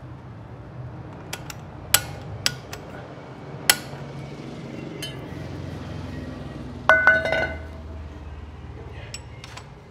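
Sharp metallic clicks and clinks of a screwdriver working a rear drum brake's adjuster and shoe hardware, backing the adjuster off because the shoes drag too much. A louder ringing clink comes about seven seconds in, over a low steady hum.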